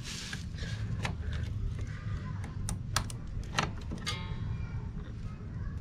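Metal clicks and clinks of a wrench working the pivot bolt of a motorcycle side stand, with a short metallic ring just after four seconds in, over a steady low hum.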